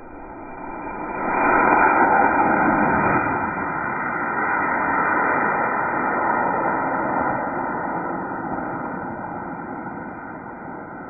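Model rocket's F-class motor burning: a loud rushing hiss that swells to its loudest in the first few seconds after liftoff, then slowly fades as the rocket climbs away.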